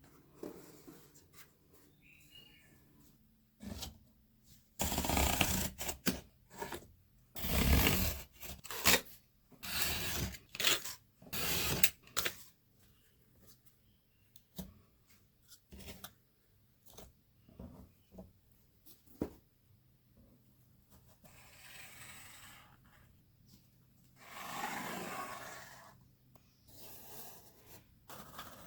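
Cardboard and craft materials being handled, scraped and torn in a string of irregular bursts, busiest from about five to twelve seconds in, with a softer rasping stretch later.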